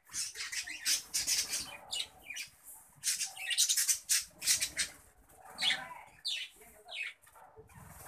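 A group of budgerigars chirping and chattering in quick, sharp calls, several of them falling in pitch.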